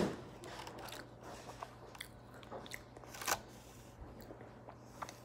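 A child chewing and biting a crisp snack, with small crunches and mouth clicks and one louder crunch about three seconds in, over a faint steady hum.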